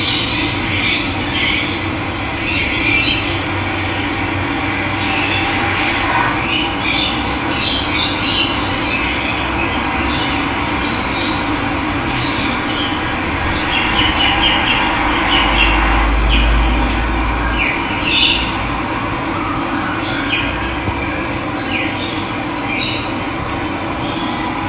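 Steady rush of running water with wild birds calling and chirping at intervals over it.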